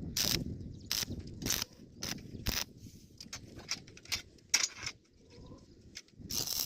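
A series of irregular sharp clicks and knocks, roughly one or two a second, with short quiet gaps between them.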